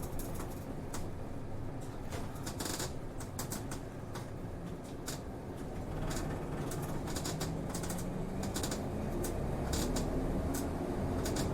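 Inside a city route bus: the diesel engine runs low under scattered clicks and rattles from the cabin. About six seconds in, the engine note starts rising slowly as the bus accelerates.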